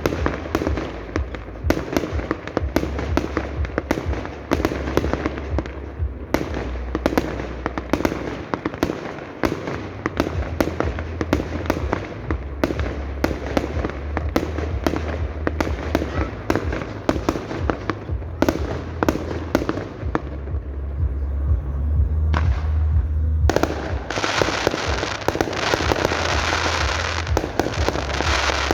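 Fireworks display: a rapid, continuous run of bangs and booms from shells bursting overhead. Near the end the bangs give way to a dense, loud crackling.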